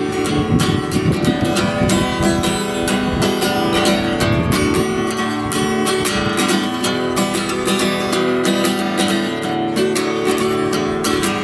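Acoustic guitar strummed in a steady rhythm, an instrumental break between sung verses of an easy-going country song.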